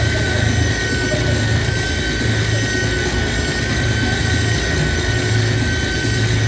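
Live noise music from electric guitar and electronics: a loud, dense, unbroken wall of noise with sustained high tones on top and a low hum that pulses on and off underneath.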